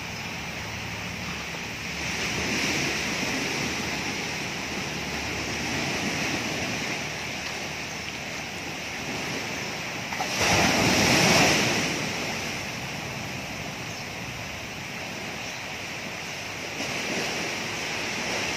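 Steady rushing of wind and small waves on a sandy shore. It swells louder a few times, most of all about ten seconds in.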